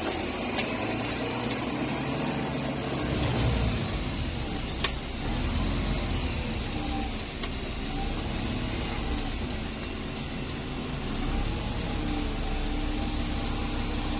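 City bus running and driving slowly, heard from inside the cabin: a steady engine rumble with a faint whine that rises and falls, and two sharp clicks in the first five seconds.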